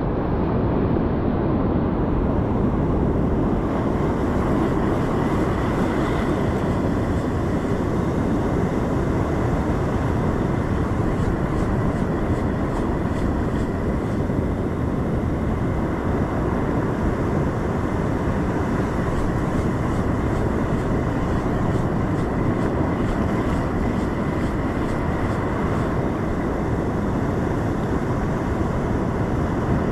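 Rough surf washing over a rocky reef shelf: a steady rush of breaking waves and churning foam.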